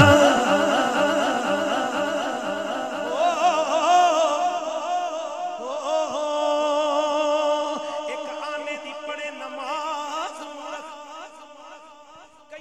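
Man singing a long wordless melismatic passage of a Punjabi naat into a microphone, with wide vibrato and held notes, without percussion. The singing grows quieter toward the end.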